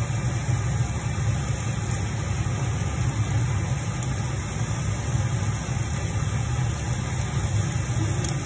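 Meat sizzling on an electric grill over a steady low motor hum, with a few light clicks from metal tongs.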